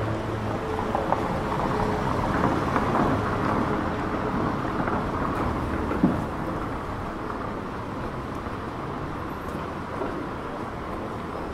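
Steady outdoor street ambience: a low rumbling hiss of traffic and passers-by, with one sharp knock about six seconds in.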